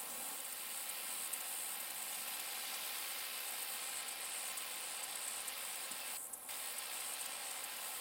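Steady insect chorus, a dense high buzzing hiss, that thins briefly about six seconds in.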